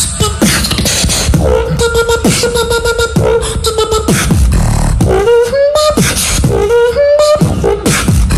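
Live beatboxing into a microphone: a drop built of sharp kick and snare hits in a steady rhythm, deep falling bass sweeps, and a held vocal tone that slides up and down over them.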